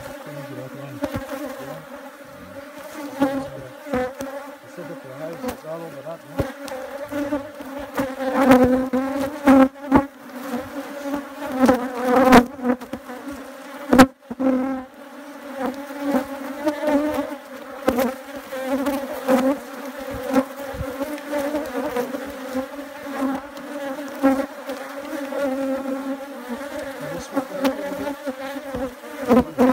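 Honeybees buzzing around an open hive, a steady many-voiced hum that swells and fades, with a few sharp knocks from the hive boxes being handled.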